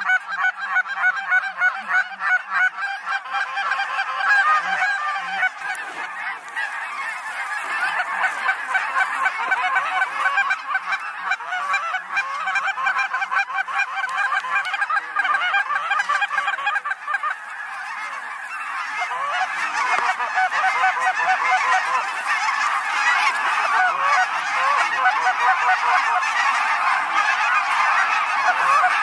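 A large flock of geese honking and calling at once in a dense, continuous chorus. It thins briefly a little past the middle, then builds again as the birds come in over the decoys.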